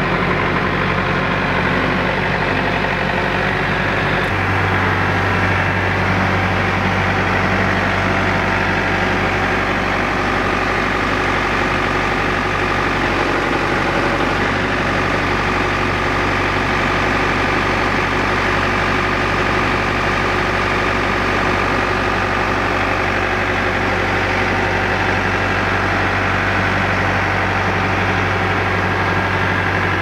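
Compact tractor engine (RK 37) running steadily, its low note changing about four seconds in and then holding, while it works the loader to set a pallet into a pickup bed.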